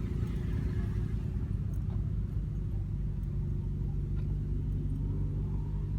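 A motor vehicle's engine idling steadily: a low, even rumble.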